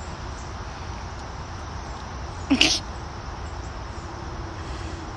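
A single short, sharp call from a ginger cat, rising in pitch, about halfway through, over a steady low rumble of wind.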